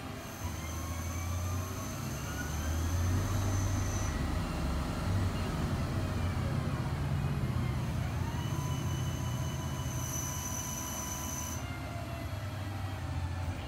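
CNC lathe turning a metal bar, the cutting tool taking a final profiling pass under coolant: a steady low hum and cutting hiss, with whining tones that glide up in pitch over the first few seconds, then down, and then hold level.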